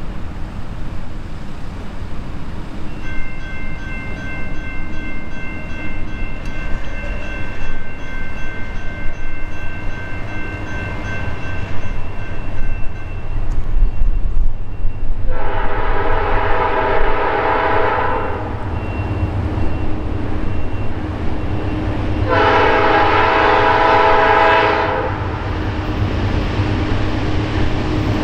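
Norfolk Southern GE D9-44CW locomotive's Nathan P5 five-chime horn sounding two long blasts, each about two and a half seconds, about halfway through and again near the end, over a steady low rumble. A steady high ringing runs through the first half, before the horn.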